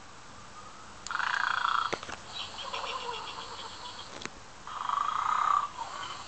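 Snoring toy pig making its snore twice, about three and a half seconds apart: each time a loud rasp lasting about a second, followed by a quieter fluttering sound.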